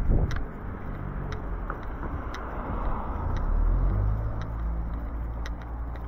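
Road traffic: a car passing on a nearby road, a steady low rumble with tyre noise swelling to its loudest a little past halfway. Light regular clicks about once a second run under it.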